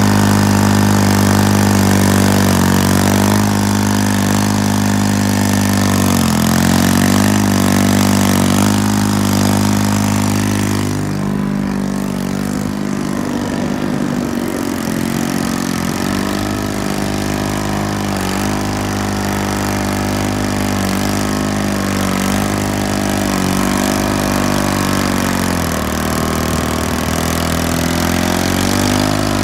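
John Deere 440 crawler tractor's General Motors diesel engine running loud and steady, its speed dipping and picking back up several times.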